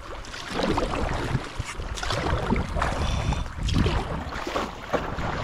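A paddle splashing through lake water in repeated strokes beside a stand-up paddleboard, with wind buffeting the microphone in a low, uneven rumble.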